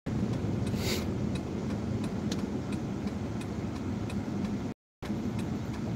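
Car interior with the engine and road noise running steadily, and a turn signal ticking about twice a second. The sound drops out completely for a moment near the end.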